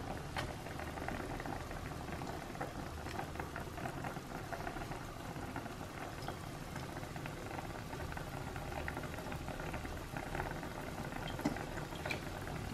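Aluminium pot of chicken in water boiling steadily on a gas stove: continuous bubbling dotted with many small ticks.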